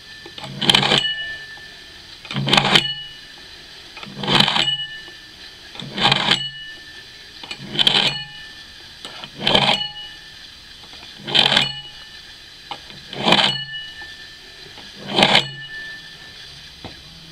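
Broad axe edge scraped through a Block Sharpener's hardened steel honing rods, nine strokes about two seconds apart. Each stroke leaves the axe head ringing briefly.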